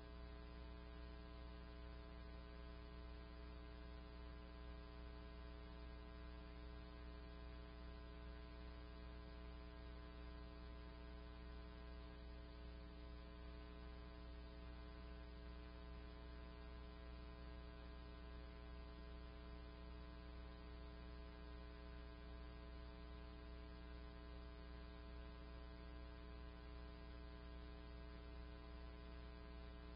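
Faint, steady electrical hum with a stack of evenly spaced overtones, unchanging throughout.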